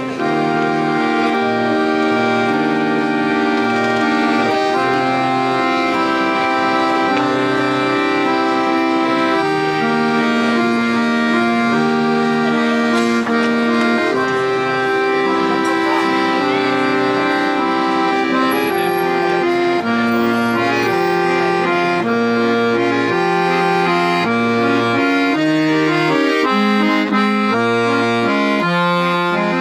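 Accordion music: a melody played over a bass line that steps between notes every second or so.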